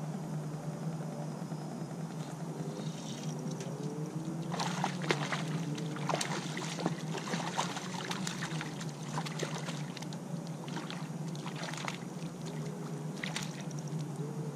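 A hooked bass splashing at the water's surface beside the boat, in irregular splashes from about four seconds in until it is lifted out near the end. A steady low hum runs underneath.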